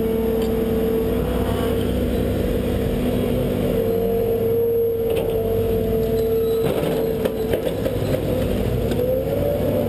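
Hydraulic excavator running, its diesel engine and hydraulics giving a steady drone with a whine, as the arm and bucket dig and swing. A few clanks come about seven seconds in.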